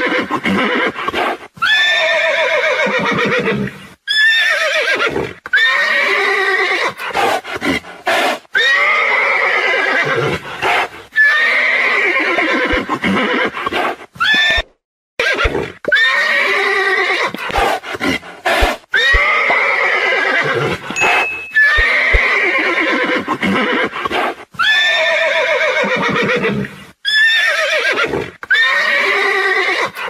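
Horse neighing over and over, a loud whinny every two to three seconds. Each call starts high and slides down into a quavering tail.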